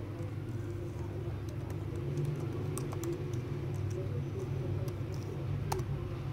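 Keys on a MacBook Pro's keyboard being tapped in a loose scattering of light clicks, one sharper click near the end, over a steady low hum.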